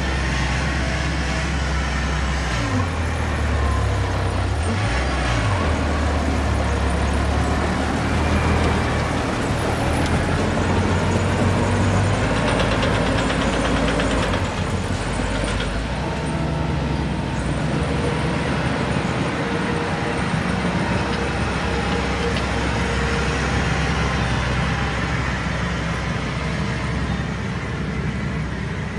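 Heavy diesel engine of earthmoving equipment running under load, its speed rising and falling a few seconds in.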